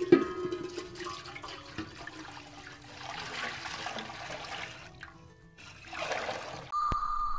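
Water poured from a jug into a large aluminium pot: it rings off the empty metal as the stream first hits, then runs on as a steady splashing pour as the pot fills, with a short break about five seconds in before the pouring resumes. A steady high tone starts near the end.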